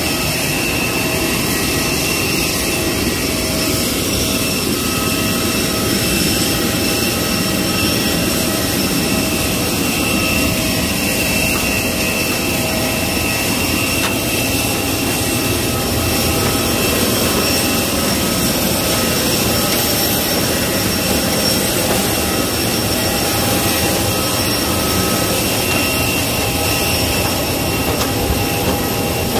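Jet airliner's turbine running steadily: a loud, even rush with several steady high whining tones over it.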